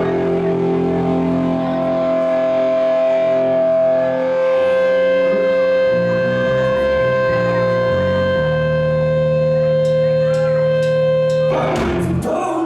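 Band music: a guitar holds long sustained notes over a low bass line that changes notes partway through, and the fuller band comes in near the end.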